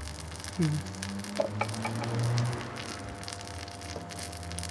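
Burning dishwasher pump motor crackling and sizzling like frying bacon over a steady electrical hum as it keeps running on mains power while its coil cooks, with a louder low hum swell about two seconds in.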